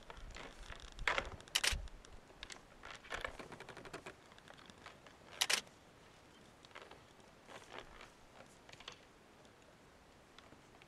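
Gemsbok horns clacking together as two oryx spar: a run of sharp knocks, the loudest about one and a half seconds and five and a half seconds in, fewer and fainter later.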